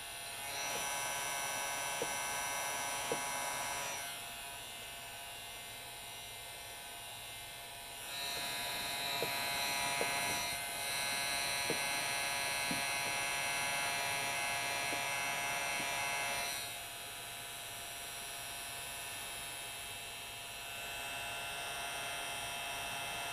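Electric heat gun running, a steady motor-and-fan hum that grows louder for a few seconds at a time: about a second in, from about eight to sixteen seconds, and again near the end. A few faint ticks sound over it.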